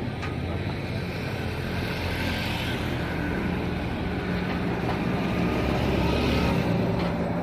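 An engine running steadily with a low hum, growing slightly louder around the middle and again near the end.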